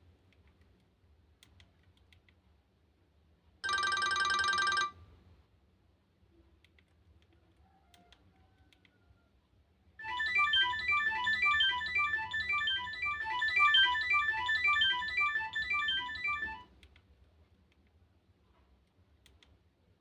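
Phone's small loudspeaker, the Nokia 110's, playing a ringtone melody of quick, bright notes for about six seconds. Before it, about four seconds in, comes a single buzzy tone lasting about a second, with faint clicks between the sounds.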